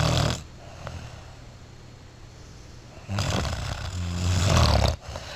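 A person snoring: the end of one loud snore, then a second long snore about three seconds in that lasts nearly two seconds and cuts off suddenly.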